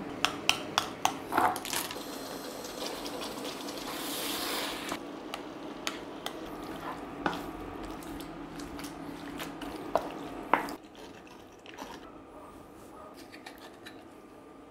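Metal fork clinking rapidly against a glass bowl while ricotta is mashed into tomato sauce, followed by wet stirring and sloshing of the food. A few more sharp clinks come about ten seconds in, and the sound is quieter after that.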